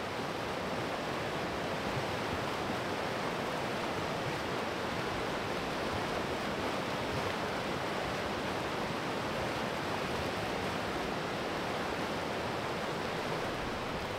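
Steady rush of fast-flowing water, an even unbroken hiss that holds the same level throughout.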